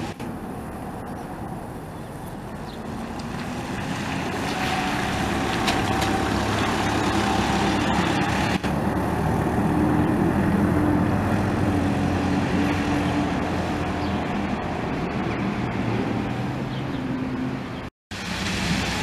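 Single-decker diesel bus engine running as the bus approaches, passes and pulls away on a wet road, with a steady hiss of tyres on the wet surface. It is loudest about halfway through, then fades as the bus drives off.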